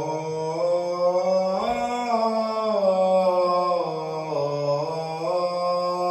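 A man chanting the adhan, the Islamic call to prayer, solo in long held melodic notes; the line rises about two seconds in and then steps gradually back down.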